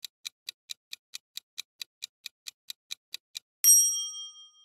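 Quiz countdown-timer sound effect: a clock ticking about four or five times a second, then a bright chime about three and a half seconds in that rings out for nearly a second, marking that the time is up.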